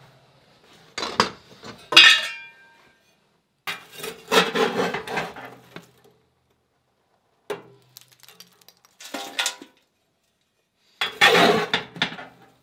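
Metal ash shovel scraping and clanking inside the firebox of a cast-iron wood stove as the ashes are cleared out, in five short bouts; one clang about two seconds in rings on briefly.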